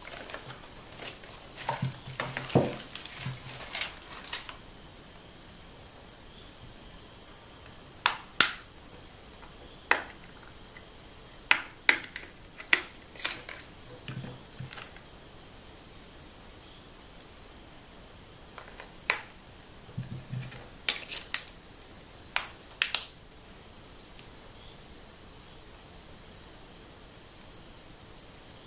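A paper instruction leaflet rustling as it is unfolded and handled for the first few seconds, then a dozen or so sharp plastic clicks and snaps, some in close pairs, as a Sony Xperia Neo L's back cover and battery are handled and the cover is snapped back onto the phone. A faint steady high whine underlies it all.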